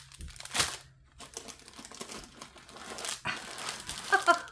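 Clear plastic packets of diamond-painting drills crinkling as they are handled and laid down: an uneven run of crackly rustles, with one louder crinkle just over half a second in.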